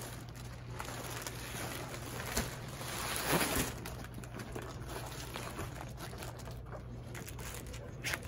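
Clear plastic wrapping crinkling and rustling as a compressed, plastic-sealed innerspring mattress is unrolled and unfolded by hand. The rustle swells to its loudest about three seconds in.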